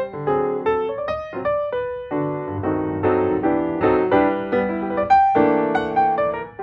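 Piano music: a melody of separate struck notes over chords.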